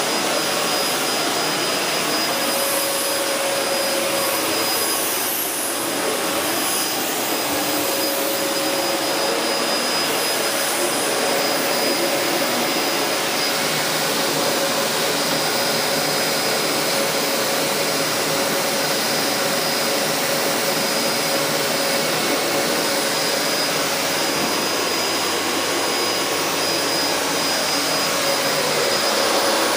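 LG VC1016NNT compact bagless cylinder vacuum cleaner running steadily: a constant rush of air with a steady motor whine.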